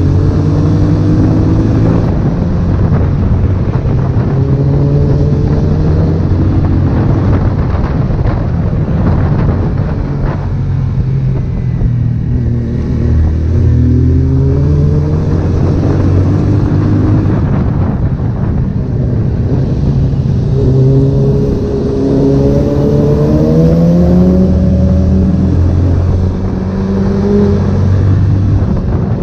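Honda CB1000R's inline-four engine running under way, its pitch repeatedly climbing as the bike accelerates, then dropping back, over a steady rush of noise.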